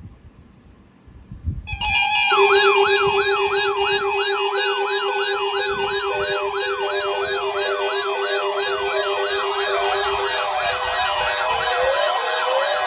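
Electronic alert siren starting about two seconds in: many overlapping rising-and-falling wails, about three a second, over a steady low tone and higher steady tones. Near the end the low tone drops out and short rising glides come in.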